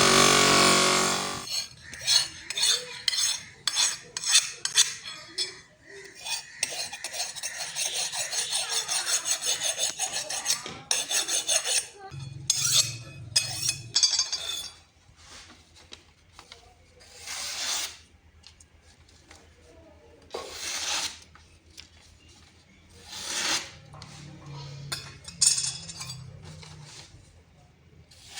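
Hand scraping strokes on a steel knife blade as it is filed or sharpened. The strokes come fast and rhythmic for a few seconds, then slow to single, separate strokes.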